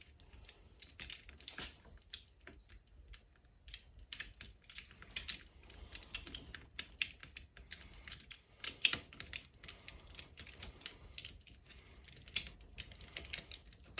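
Hex key turning a screw into the QD sling socket of a polymer rifle stock: irregular light metal clicks and small scrapes, with one sharper click about nine seconds in.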